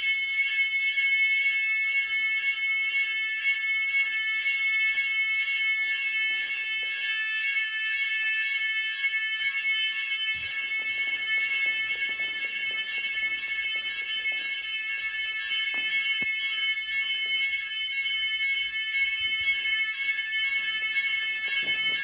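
Finsécur type 4 fire alarm evacuation sounders going off in a general evacuation test, giving a steady, high-pitched tone without pause.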